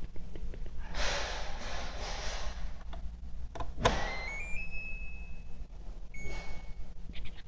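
Faucet water running briefly into a plastic cup, then a click and the hydrogen water server's electronic beeps: a quick stepped run of rising tones that settles into one held beep, and a second beep about two seconds later.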